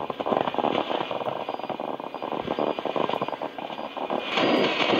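Shortwave static and crackle from a Realistic DX-60 receiver playing through its built-in speaker, with no clear station coming through; it gets louder about four seconds in.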